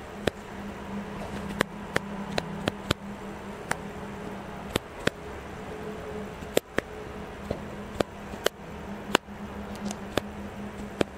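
Clicking detents of a camera's shutter-speed and ISO dial wheels being turned step by step: sharp single clicks at irregular intervals, sometimes several in quick succession, over a steady low hum.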